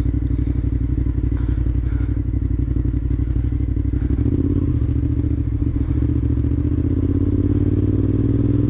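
Cagiva Raptor's 996 cc V-twin running through a loud exhaust, held at low revs at first, then rising steadily from about halfway through as the bike gently accelerates.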